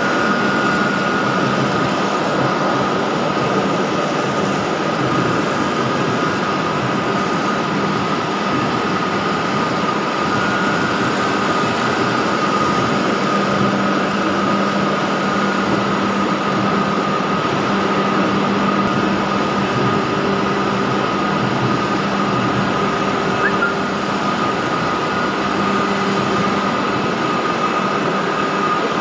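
Machinery of a running soya chunks production plant: a steady, dense mechanical din of motors and conveyors, with a constant high whine and a low hum throughout.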